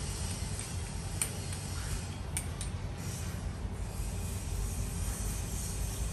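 A hand rubbing grout over glazed wall tiles, a soft scrubbing hiss with a few light clicks, over a steady low rumble.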